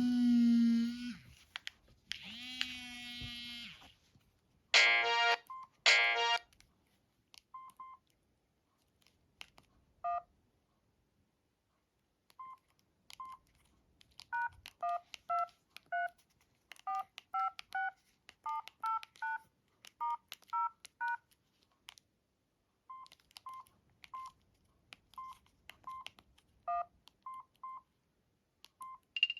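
Samsung SGH-D500 mobile phone's keypad tones: short single beeps as keys are pressed, and a run of two-note DTMF dialing tones, about two a second. The first few seconds hold a few other short electronic system sounds, the loudest two about five seconds in.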